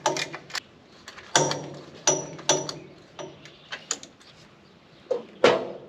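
Metal wrenches clinking and clanking against metal: a string of sharp knocks, a few ringing briefly, with the loudest clank near the end.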